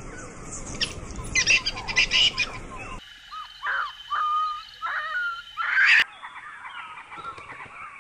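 Birdlike chirps and short whistled calls that glide in pitch, in three separate stretches that change abruptly about three and six seconds in.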